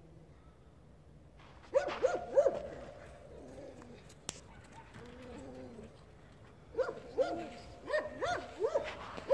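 Dog barking from a distance: a short run of barks about two seconds in, then a longer run near the end.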